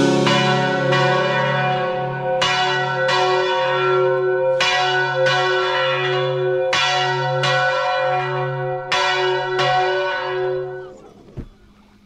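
Church bell ringing, struck in pairs about every two seconds, each stroke ringing on and the ringing dying away near the end.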